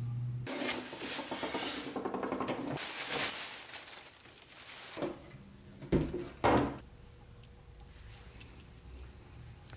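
Plastic packaging bag rustling and crinkling as it is pulled off the machine for about three seconds. This is followed by two short thuds about a second apart.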